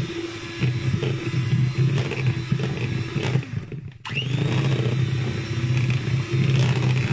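Electric hand mixer running with its beaters in thick cake batter. The motor winds down and stops a little before four seconds in, then starts straight up again with a rising whine.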